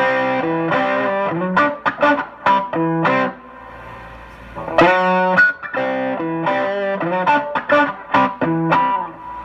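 Collings City Limits Les Paul-style electric guitar through a Fender amp, played on the bridge pickup with the volume knob rolled down: a quick single-note lead lick picked in two phrases, with a short pause about three and a half seconds in.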